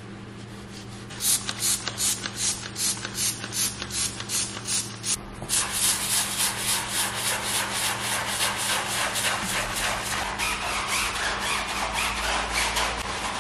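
Brushes scrubbing a foam-covered car wheel and tyre: rhythmic scrubbing strokes, about three a second, starting about a second in. After a brief break about five seconds in, a tyre brush scrubs the soapy sidewall with faster, steadier strokes.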